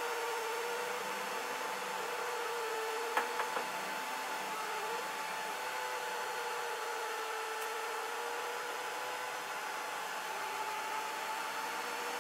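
Delta 3D printer laying down its first layer: a steady fan hiss with a stepper-motor whine that wavers in pitch as the print head moves, and three quick clicks about three seconds in.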